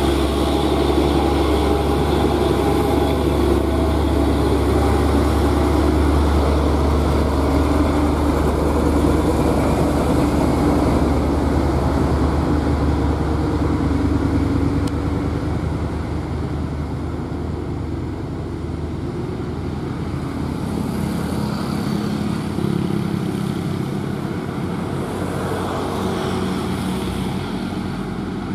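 Diesel engine of a loaded Hino cargo truck running loudly as it passes close by, a steady low drone. About halfway through it gives way to quieter engine sound from approaching trucks, a loaded Mitsubishi Fuso 6x4 among them, which grows a little in the second half.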